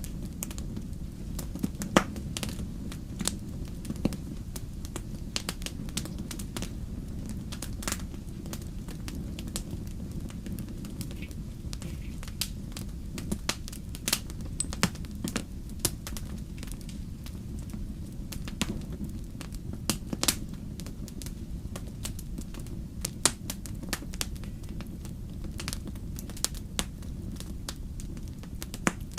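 Wood fire crackling in a fireplace: a steady low rumble of burning with irregular sharp pops and snaps, the loudest pop about two seconds in.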